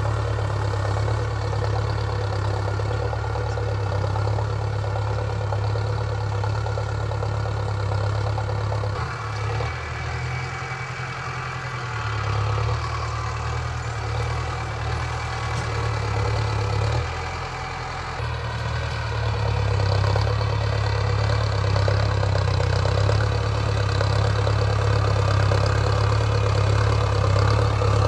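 Mahindra Arjun Novo 605 DI-i tractor's four-cylinder diesel engine running steadily while it pulls a seed drill, with a deep steady hum. It fades twice in the middle and grows louder near the end as the tractor comes closer.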